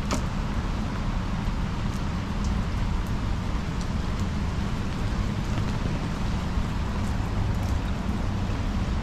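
Steady rain, with scattered sharp drop ticks over a low, steady rumble.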